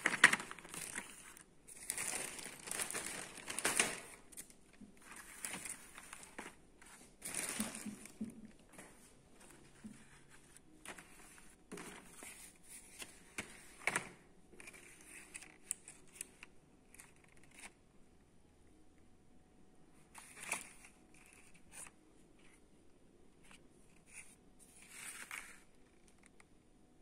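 Cardboard product boxes being handled and shuffled against each other: irregular rustling and crinkling of the paperboard with scattered taps and clicks. The handling is busiest in the first several seconds and comes in sparser bursts later.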